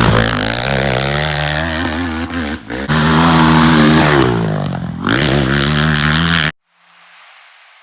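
Honda CRF450R trike's single-cylinder four-stroke engine revving up and down under throttle, its pitch rising and falling, with a brief drop off the throttle partway through. It cuts off suddenly near the end, leaving only a faint hiss.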